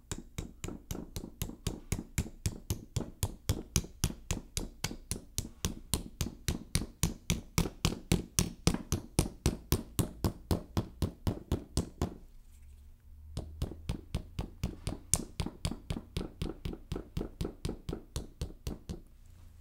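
Ball-peen hammer tapping a rubber sealing-cap strip down onto the filler holes of a small sealed scooter battery: quick, light, even taps at about four a second, with a brief pause partway through. The taps seat the cap to seal the battery after its acid fill.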